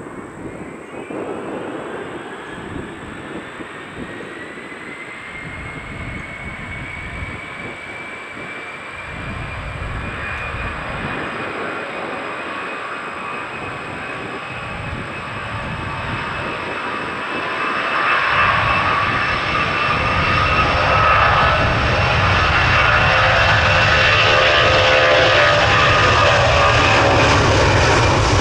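Jet airliner engines with a whine that rises in pitch and then holds steady as they spool up. The sound grows steadily louder, and a deep rumble joins about eighteen seconds in.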